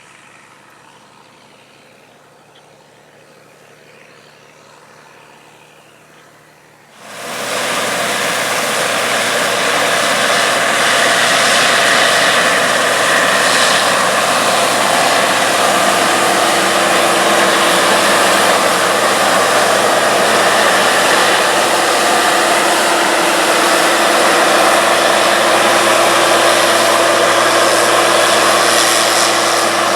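Faint distant diesel farm machinery humming steadily, then about seven seconds in a sudden switch to a loud, close harvest machine running steadily under load, a dense engine and machinery noise.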